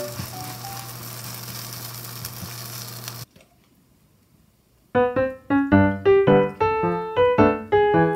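Chive pancake sizzling in oil in a frying pan, with faint music notes behind it; the sizzle cuts off suddenly about three seconds in. After a second and a half of near silence, light piano music with quick repeated notes begins.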